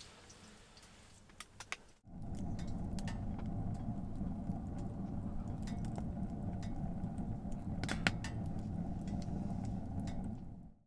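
Firewood burning in a wood stove: a steady low rush of flame with scattered crackles and pops, starting abruptly about two seconds in after a few faint clicks in a quiet room.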